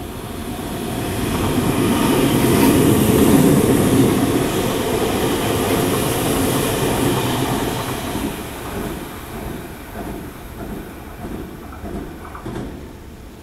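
Odakyu 50000 series VSE Romancecar electric train passing without stopping. Its rushing noise builds to its loudest about three to four seconds in, then fades as it draws away, with a clickety-clack of wheels over the rail joints in the later part.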